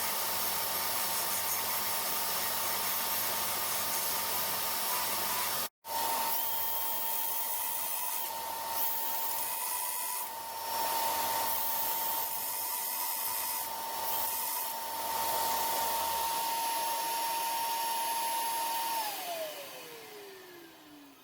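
A power tool's motor runs at a steady speed over a hissing, rubbing noise. It drops out for an instant about six seconds in. Near the end it is switched off, and its pitch falls as it spins down.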